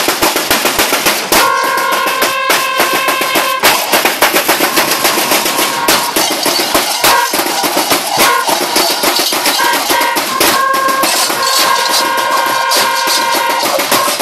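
Large cowbells worn by Perchten clanging continuously and densely as the costumed figures stomp and dance, some bells ringing on in sustained tones.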